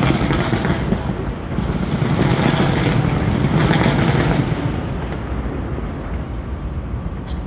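Fireworks bursting in quick succession, blending into a dense, continuous rumble. The rumble is heaviest in the middle and eases off after about four and a half seconds.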